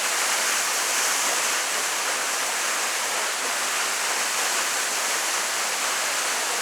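Waterfall: water falling and splashing in a steady, even rush with no breaks.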